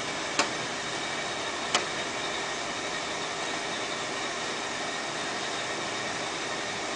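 Steady background hiss with a faint hum, broken by two light clicks in the first two seconds.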